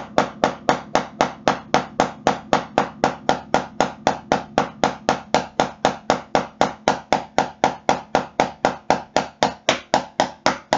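Wooden drumstick striking a rubber practice pad in a steady stream of even right-hand single strokes, about five a second.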